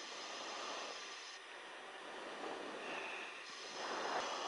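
Steady hiss and rushing noise on an aircraft's intercom channel. The high hiss cuts in and out, and a louder rush of noise comes about four seconds in.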